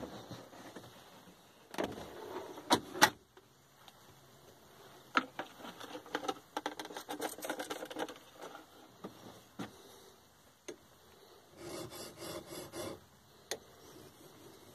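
Workshop handling sounds: a couple of sharp knocks, then a run of quick squirts from a spray bottle onto a diamond sharpening plate. Near the end comes a short rasping spell of quick back-and-forth strokes as a steel chisel is honed on the diamond plate.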